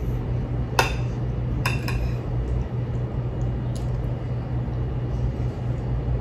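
Metal fork and spoon clinking against a plate while food is scooped up: a sharp clink about a second in, two more just before two seconds, and a lighter one near four seconds, over a steady low hum.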